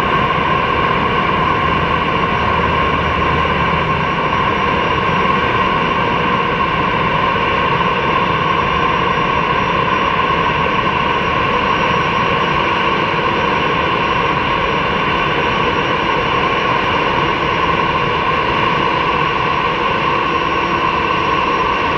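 Airbus A340-300's four CFM56 turbofan engines running at taxi power: a steady jet whine over a rumble, holding an even level throughout.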